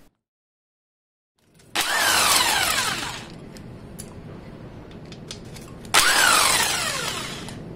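After about a second and a half of silence, a handheld power tool with a socket on an extension runs in two bursts of about a second and a half each, on the bolts of an axle's differential cover. Each burst is a loud whine that falls in pitch.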